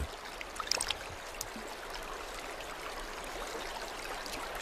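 Stream water trickling steadily, with a few faint ticks about a second in.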